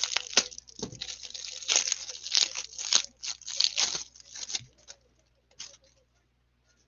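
A trading card hanger pack's wrapper being torn open and crinkled by hand, in a run of irregular rustles and crackles that stops about four and a half seconds in, leaving only a couple of faint ticks.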